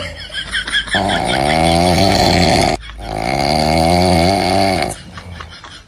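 Two long, wavering, low moaning calls, about two seconds each with a short break between them, each sagging slightly in pitch.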